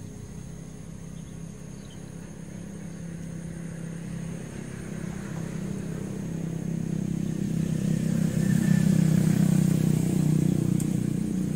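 A road vehicle's engine drawing steadily closer on the nearby road, loudest about nine seconds in and beginning to fade near the end.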